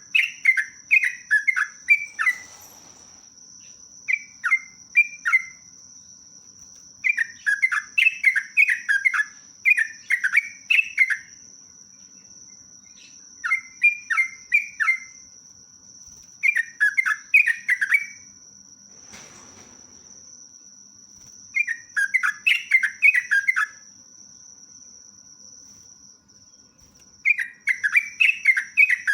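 Yellow-vented bulbul (trucuk) singing: short bubbly phrases of quick rising and falling notes, each one to two seconds long, repeated about eight times with pauses between. A steady high-pitched whine runs underneath.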